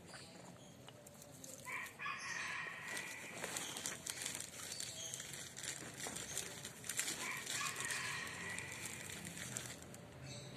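Rooster crowing twice, each crow lasting about two seconds: the first starts about two seconds in and the second about seven seconds in.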